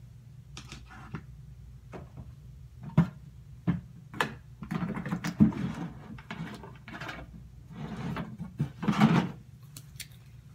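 Irregular knocks, clicks and rustling of small things being handled close to the microphone, loudest about three, five and nine seconds in, over a steady low hum.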